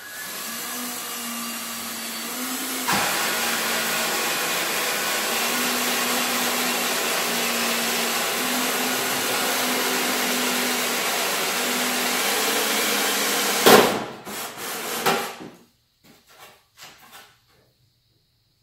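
Electric drill running a 1-inch hole saw, cutting a hole in a tractor panel: a steady whine and grinding that gets louder about three seconds in. It ends with a sharp crack near fourteen seconds, followed by a few short bursts of the drill.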